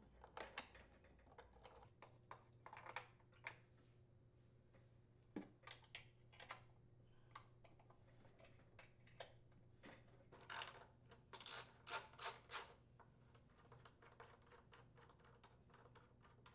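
Faint, scattered light clicks and taps of a hand socket tool working the blower housing mounting bolts off a Briggs & Stratton small engine, with a quicker run of clicks a little past the middle.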